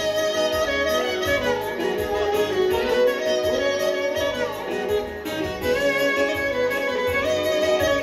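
Live Albanian folk dance band playing an instrumental tune: a lead instrument plays an ornamented melody with slides over a steady drum beat.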